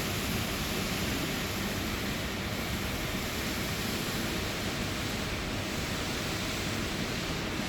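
Heavy rain pouring down in strong wind: a steady, dense hiss with rough, fluttering rumble low down.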